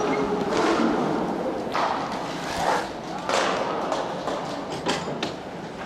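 Inline hockey play in a rink: a few sharp knocks and thuds of sticks and puck against the boards, over the rumble of skate wheels and players' voices.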